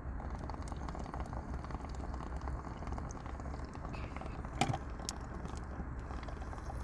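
Water bong bubbling steadily as smoke is drawn through it, a continuous low gurgle, with a single sharp click about four and a half seconds in.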